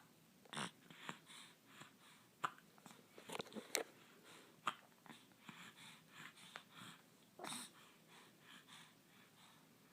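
Hiccups: several short, sudden hiccups at irregular intervals, a second or more apart.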